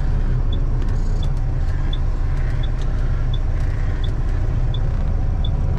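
Western Star semi truck's diesel engine idling, a steady low rumble heard from inside the cab, with a light tick repeating about every 0.7 seconds.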